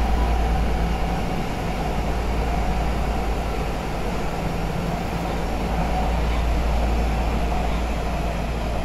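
Nagoya Municipal Subway Meijo Line 2000 series train running, heard from inside the car: a steady low rumble of wheels and running gear.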